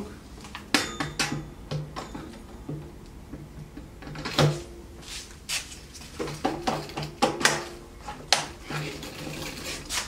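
Irregular clicks, knocks and scrapes of a Kärcher ash vacuum's hose and extension tubes being handled and fitted together and onto the machine's inlet. The vacuum is not running.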